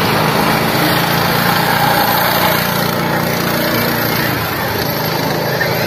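Go-kart engine running steadily as the kart drives along the track, its pitch holding fairly even.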